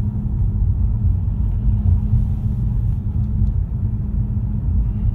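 Steady low road rumble and hum heard inside the cabin of a 2015 Ford Mustang while driving. The owner calls it excessive road noise and suspects a bad wheel bearing, though it could also be the tires or rough asphalt.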